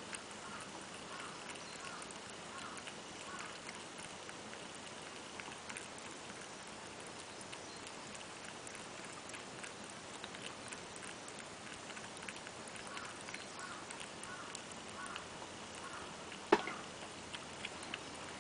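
A cat lapping water from a bowl: faint, soft licking ticks repeating about three times a second in runs, over a steady hiss. One sharp knock near the end.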